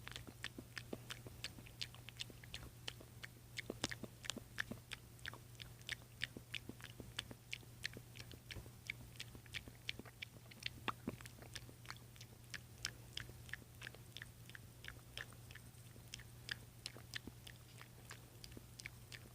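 Irregular run of small sharp clicks, several a second, over a steady low hum.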